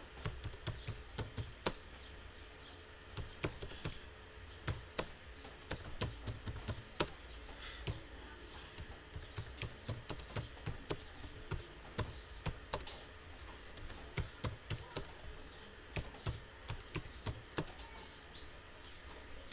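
Typing on a computer keyboard: a run of irregularly spaced keystroke clicks as a sentence is typed, over a steady low hum.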